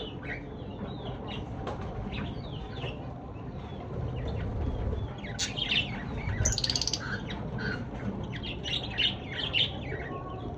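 Lovebirds chirping: many short, shrill calls in quick succession, growing busier about halfway through, over a steady low rumble.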